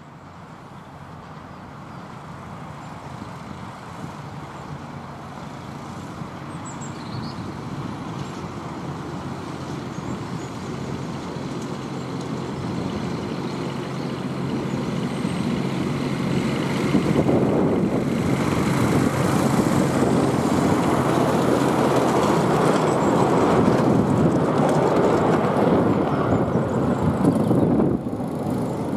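Fenlow 4w-4wDH diesel-hydraulic miniature railway locomotive running with its coaches, growing steadily louder as it approaches and loudest as it passes close from about two-thirds of the way in, then falling away suddenly near the end.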